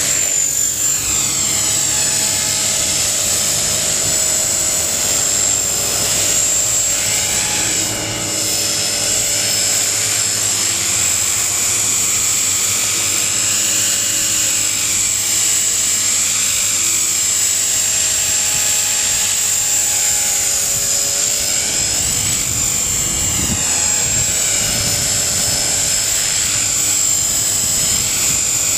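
HK-450 T-Rex 450 clone electric RC helicopter flying low: a continuous high whine over rotor noise, its pitch swooping up and down several times as it manoeuvres.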